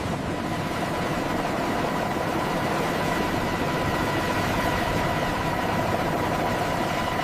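Heavy machinery running steadily: a dense, even engine rumble with a faint steady high whine over it.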